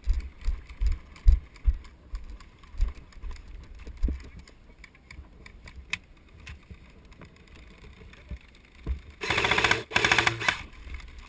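An airsoft gun firing two short full-auto bursts about nine seconds in, a fast rattle of shots. Before them there are low dull thumps on the microphone.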